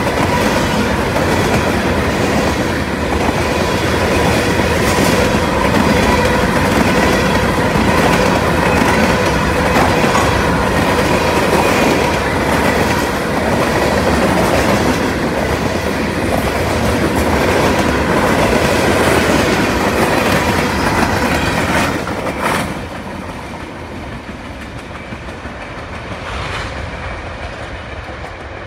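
Freight train cars rolling past close by: covered hoppers, tank cars and gondolas, wheels clicking over rail joints with a steady ringing tone under the rumble. About 22 seconds in the last car goes by and the sound drops as the train moves away.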